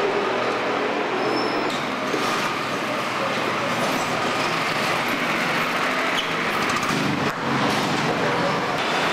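Steady din of motor vehicle traffic, with a few faint knocks.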